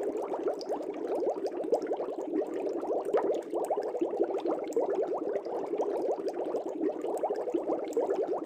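Air bubbles streaming up through an aquarium's water. It is a steady, dense bubbling made of many small, quick bubble blips without pause.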